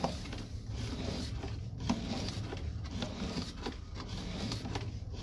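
Drain inspection camera's push rod being fed by hand into a sewer pipe, with irregular rubbing and scraping strokes over a steady low hum.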